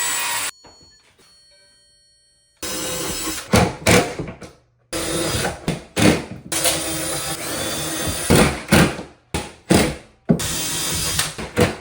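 Power tool running in several short stretches that start and stop abruptly, with a brief lull about half a second in.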